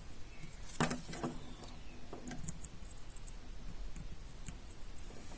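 A few soft clicks and taps from small tools and the remote key's circuit board being handled during soldering, the sharpest about a second in.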